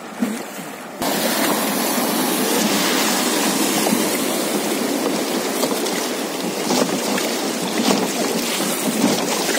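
Rushing, churning water of shallow river rapids right beside a wooden raft, a dense steady rush that comes in suddenly about a second in.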